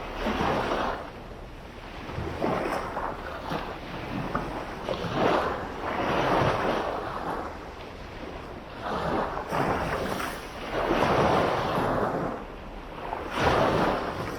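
Small sea waves breaking and washing up on a beach, the surf swelling and fading about every two to three seconds.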